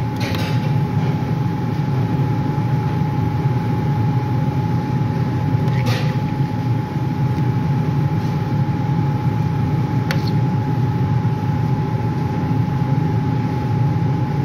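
Steady low mechanical hum with a thin steady whine above it, like a kitchen appliance's motor or fan running; two brief clicks about six and ten seconds in.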